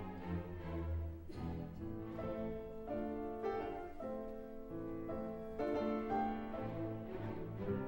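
Classical-style instrumental background music, its notes changing every second or so.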